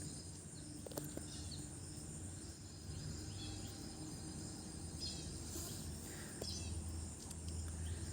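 Faint background ambience: a steady low hum with scattered faint high chirps, like birds or insects, and a small click about a second in.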